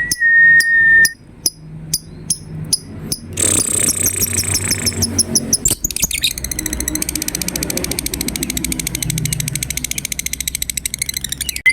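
Lovebird calling. A short steady whistle-like note leads into sharp, high chirps, then a dense burst of chirps. From about six seconds it becomes a long, fast, rattling chatter: the ngekek call that lovebird keepers use as bait to set other birds calling.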